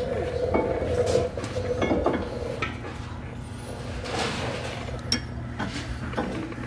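Hand tools clinking and knocking against a steel shock mount bracket and front suspension parts as the bracket is fitted, with a metallic ringing in the first couple of seconds. A steady low hum runs underneath.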